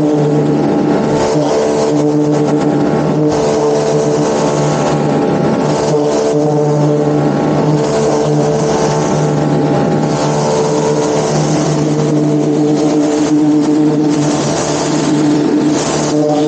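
High-pressure washer running steadily, its pump motor humming under the hiss of the water jet as it sprays a deck.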